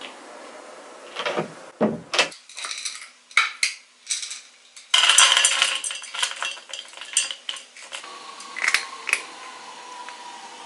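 Dry cat kibble poured from a glass jar into a metal bowl, a loud rattling clatter lasting about a second, with scattered clinks and knocks of the jar and bowl before and after it.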